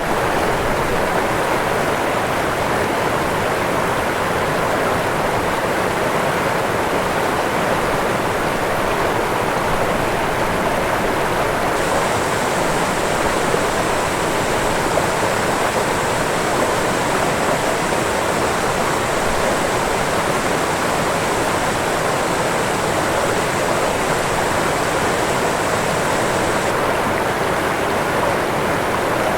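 Waterfall: falling water rushing steadily, with no let-up.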